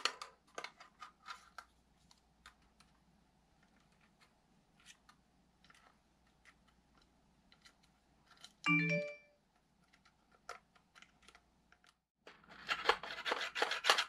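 Light plastic clicks and taps from handling a polymer HexMag magazine and a needle-tip gun-oil bottle, with a brief squeak about nine seconds in. Near the end comes a fast, louder run of clicking and rattling as the freshly oiled magazine follower is worked up and down its rails.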